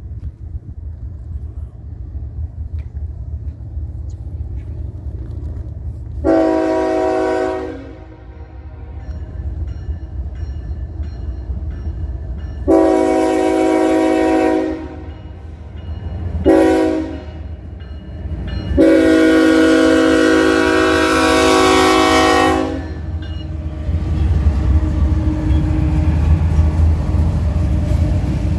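BNSF freight train's diesel locomotive sounding its air horn for the grade crossing in the standard pattern: long, long, short, long. The low rumble of the approaching locomotives runs beneath the horn and grows heavier near the end as they pass close by.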